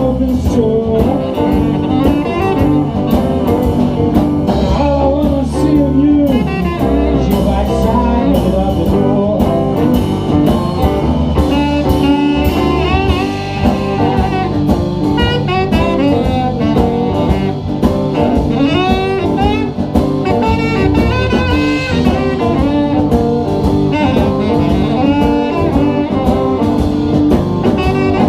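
Live blues band playing an instrumental break between sung verses: a lead instrument plays a solo with bending, wavering phrases over drums and bass.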